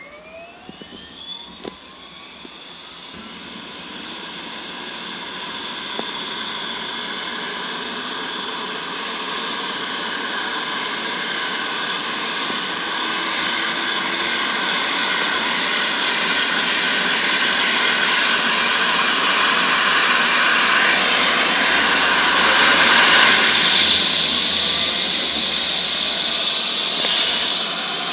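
AgustaWestland AW109SP helicopter's twin turboshaft engines starting up. The turbine whine glides upward in pitch over the first few seconds, then the engine and main-rotor sound grows steadily louder as the rotor spins up to speed.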